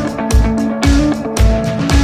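Background music with a steady beat: guitar over a kick drum at about two beats a second.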